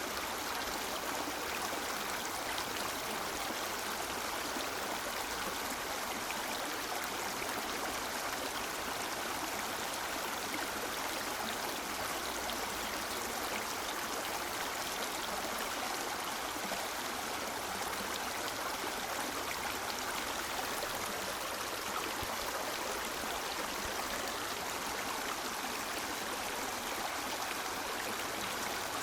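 River water flowing over stones in a steady, unbroken rush with light gurgling.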